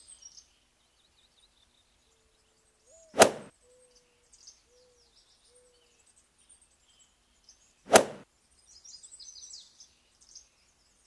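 Two sharp transition sound effects, hits about five seconds apart, each with a short tail. Faint high bird chirps come at the start and again near the end.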